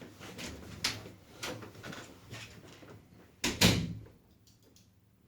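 A string of short knocks and clatters, the loudest a quick double knock about three and a half seconds in.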